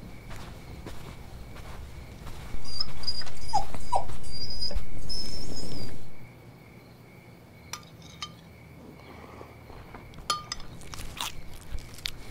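A dog whining, a high-pitched whine in several short breaks lasting about three and a half seconds, begging up at its owner. Later come a few faint clinks of a spoon against a bowl.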